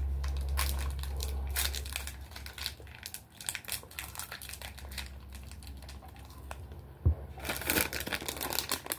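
Foil-lined snack bar wrapper crinkling and tearing as it is opened, in irregular crackles that are densest near the end. A low hum fades out about two seconds in.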